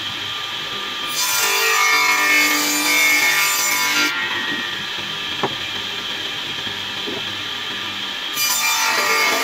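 Stationary saw's blade cutting into a wooden box as it is pushed along the fence. There are two cuts, one starting about a second in and one near the end, and the machine runs more quietly between them. A single sharp click comes midway.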